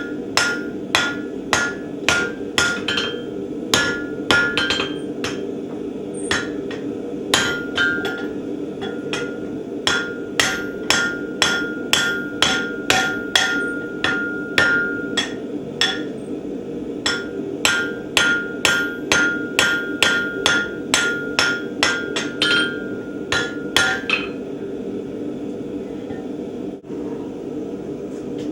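Repeated hammer blows forging a steel Borax wagon standard, about two to three a ringing strike a second with short pauses, over a steady hum; the hammering stops near the end.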